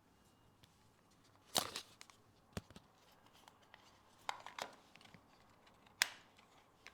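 Handling noise from a pair of headphones being picked up and set up: a few sharp clicks and short rustles, the loudest about a second and a half in and again near the end.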